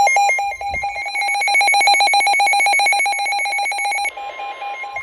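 Emergency alert broadcast tones for a special marine warning: a loud, fast-trilling electronic beep, then, about four seconds in, a steady single-pitch tone. This is the kind of alarm tone a weather alert broadcast sounds before the spoken warning.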